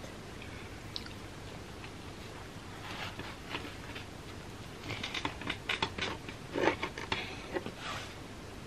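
Knife sawing through a chick'n parm sandwich roll, making short crackling, crunchy strokes as the blade cuts the bread crust. The strokes come sparsely at first and thicken into a quick run from about five to eight seconds in.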